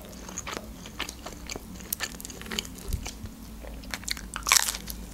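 A person chewing food close to the microphone, with small wet mouth clicks, then a louder crunchy bite into a slice of pizza about four and a half seconds in.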